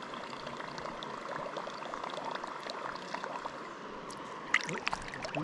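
River water running and babbling over rocks, with a brief sharper splash-like sound near the end.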